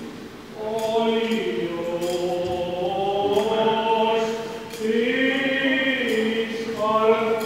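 Byzantine-rite liturgical chant sung by several voices together in long, slow phrases. It starts about half a second in, pauses briefly near five seconds, and a new phrase begins near the end.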